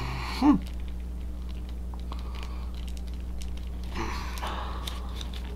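Small plastic clicks and rubbing from a NECA action figure being handled while a hand is worked onto its peg, over a steady low hum.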